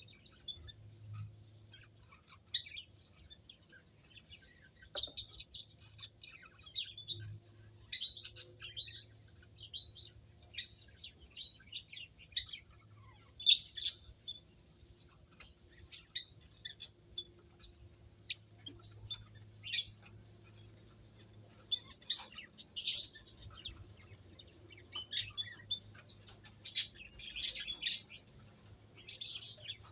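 Small birds chirping in an aviary: many short, high chirps scattered throughout, with a few louder calls about halfway through and in the last third.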